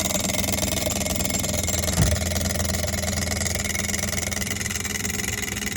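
Kenmore refrigerator's condenser fan running with its blades striking the condenser coils: a steady rattle over a low hum, with one louder knock about two seconds in. The fan has slid forward on its shaft into the coils.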